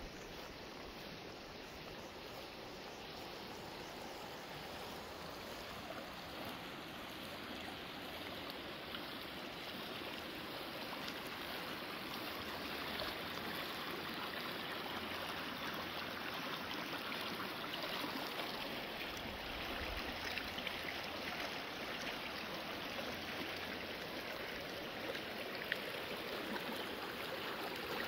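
Fremont River, a mountain brook, running: a steady rush of flowing water that grows gradually louder.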